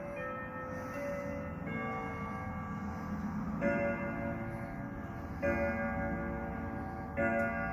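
Grandfather clock from West Germany, made in the late 1940s or early 1950s, ending its chime tune and then striking the hour three times, roughly two seconds apart, for three o'clock. Each stroke rings on into the next.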